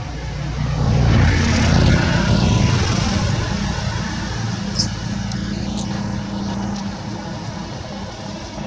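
A motor engine passing by: a low hum that swells about a second in and then slowly fades.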